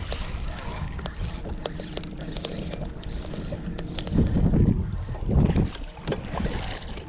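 Wind buffeting the microphone on a small fishing boat on open water, surging louder twice about four and five and a half seconds in, with scattered light clicks.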